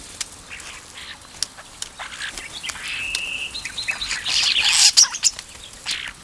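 Common starling calling: scattered sharp clicks, a short steady whistle about three seconds in, then a loud rattling chatter around four to five seconds in.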